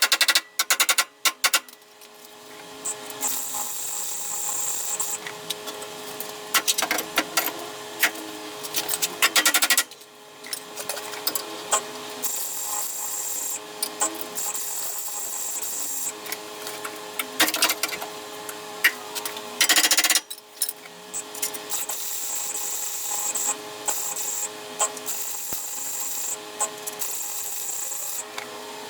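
MIG welding on car body steel, crackling and spitting in three long runs of about eight seconds each with short pauses between them.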